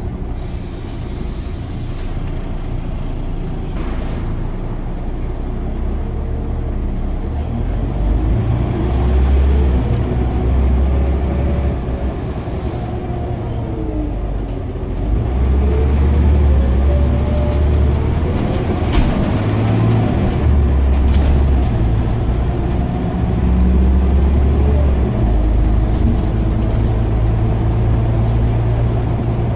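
Scania OmniCity bus engine and transmission heard from inside the passenger saloon on the move. A steady low engine note gets louder as the bus pulls harder, about a quarter of the way in and again around the middle and near the end, with a whine that rises and falls in pitch through the gear changes.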